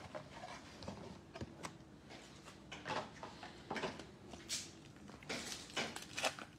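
Foil trading-card pack crinkling and tearing as it is ripped open by hand, in scattered short rustles that grow busier in the last two seconds.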